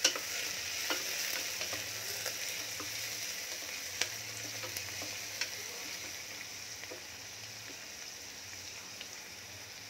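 Chopped onions, curry leaves and whole spices sizzling in hot oil in a pressure cooker as they are stirred with a wooden spatula, with a few sharp clicks of the spatula against the pot. The sizzle eases a little toward the end.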